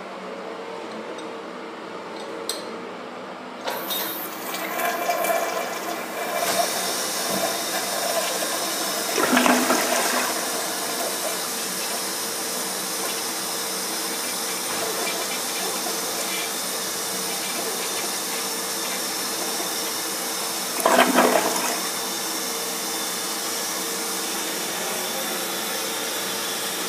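1996 Crane Plumbing Hymont toilet flushing. Rushing water starts about four seconds in and swells to a loud surge about ten seconds in, then a second surge comes about twenty-one seconds in: this toilet's double flush. Steady rushing refill water runs between and after the surges.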